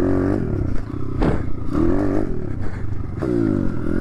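Small four-stroke dirt bike engine on the move, its pitch rising and falling several times as the throttle is opened and closed, with some rattle from the bike.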